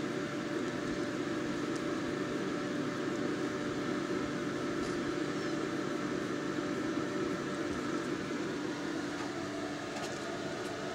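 Steady mechanical hum with several held tones, its pitch pattern shifting slightly near the end, with a few faint ticks.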